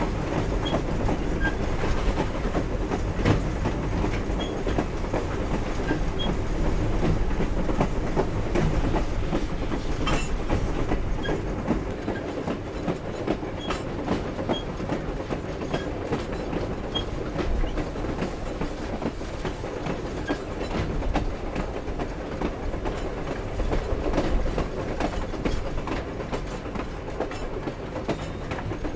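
Grand Canyon Railway steam train under way: wheels clicking over the rail joints, with the cars clanking and rattling over a steady rumble, and faint short squeaks now and then.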